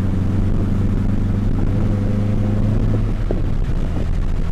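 Renault Clio 172 RS heard from inside the cabin while driving: a steady engine drone with road rumble.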